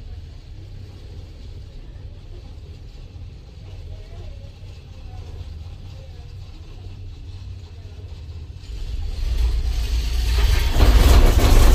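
Cable car cabin descending, heard from inside: a steady low hum of the ride. From about nine seconds in, a loud rumble and rattle builds and peaks near the end as the cabin rolls over a support tower's sheaves.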